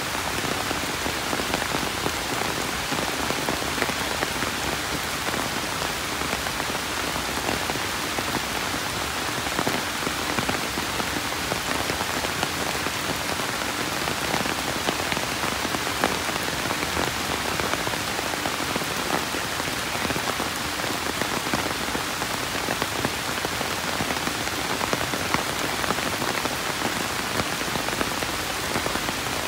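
Steady rain falling: an even hiss of countless drops striking surfaces, with a fine patter of individual drop hits.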